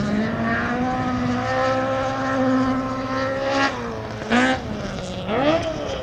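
Historic rally car's engine pulling hard at high revs with a nearly steady pitch. A little past halfway the revs drop sharply and climb again, then dip and rise once more near the end.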